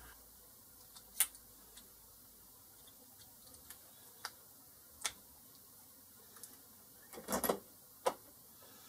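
Light clicks and knocks of small steel parts being handled, metal tapping on metal: a handful of single taps and a brief clatter of several a little after seven seconds in.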